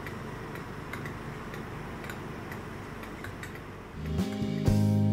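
Regular ticking, about two ticks a second, over a steady low hum. About four seconds in, louder background music with guitar starts.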